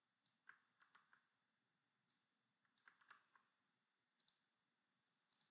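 Near silence, with a handful of faint, irregular computer mouse clicks.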